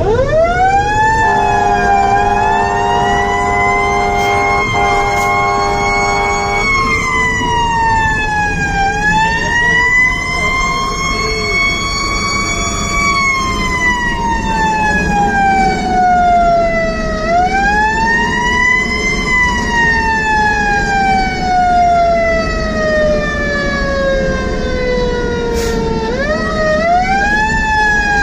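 Fire engine siren wailing, heard from inside the cab: it winds up quickly at the start, then rises and falls slowly and unevenly, with long drawn-out falls in pitch. A steady horn blast sounds over it for about five seconds near the start, with truck engine and road noise underneath.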